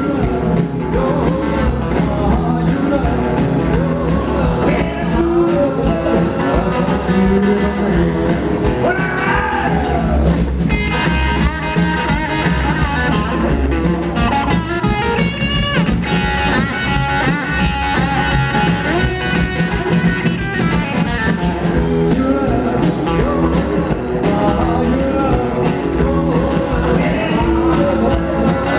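Live rock and roll band playing: upright bass, acoustic and electric guitars and drums, with a man singing.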